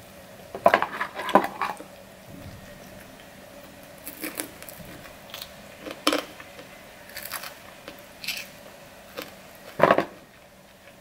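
Close-up eating sounds: crunching bites into an extra-crispy fried chicken wing, a quick cluster about a second in, then scattered crunches and lip smacks while chewing, with one sharper smack near the end.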